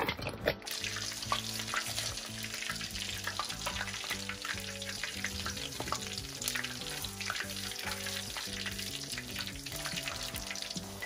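Breaded chicken pieces deep-frying in oil over high heat: a steady sizzle with scattered crackling pops as coated pieces are dropped in. The coating floats up straight away, the sign that the oil is at frying temperature.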